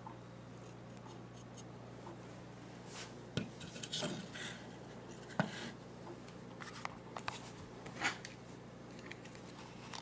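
Hands handling small parts: scattered clicks, taps and short scraping noises, the sharpest click about halfway through, over a steady low hum.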